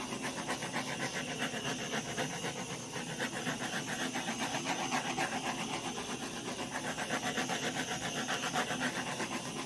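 Handheld gas torch burning with a steady hissing flame that flutters rapidly, played over wet acrylic pour paint to pop surface bubbles.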